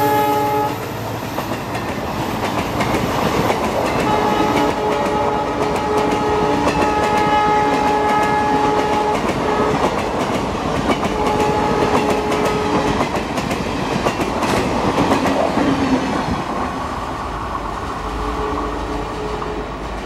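WDP4D diesel locomotive's horn sounding in repeated blasts: one ends just under a second in, a long blast of about five seconds follows, then one of about two seconds, and a fainter one near the end. Under it the passenger coaches rumble past with a steady clickety-clack of wheels on rail joints.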